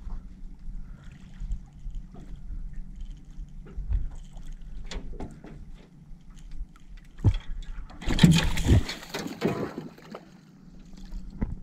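Small blue catfish splashing and thrashing at the water's surface beside a jon boat as it is reeled in and lifted out, with the loudest splash about eight seconds in. Light scattered knocks of handling in the boat.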